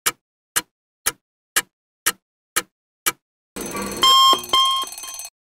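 Clock ticking sound effect, about two ticks a second, then an alarm rings in two short bursts for about two seconds near the end.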